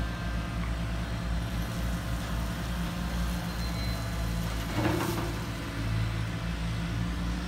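Hydraulic RC model excavator running steadily, a constant low machine hum with a steady pitch, while it dumps a bucket of rock and swings back. A short burst of noise comes about five seconds in.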